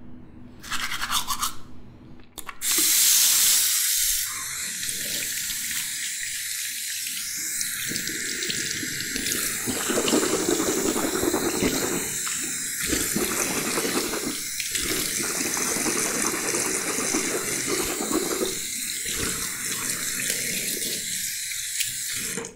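Brief toothbrush scrubbing, then a tap running into a wash basin from about three seconds in, the stream shifting now and then, until it shuts off suddenly.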